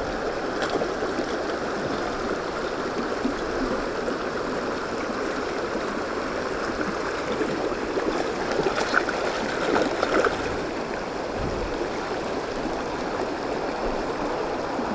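Shallow, fast stream running over stones and through small riffles, a steady rush of water. A few short, louder sounds come about two-thirds of the way through.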